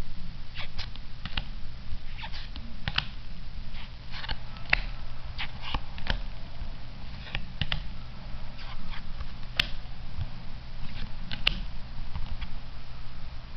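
Trading cards being flipped through by hand one at a time: irregular soft flicks and slides of card against card.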